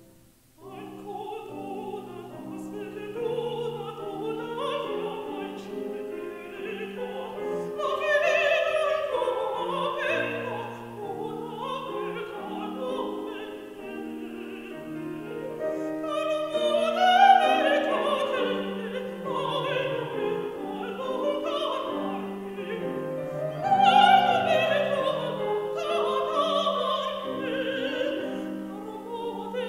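A woman singing in classical operatic style, with vibrato, in a 17th-century Italian cantata, accompanied on grand piano. The music starts again after a short break just at the beginning.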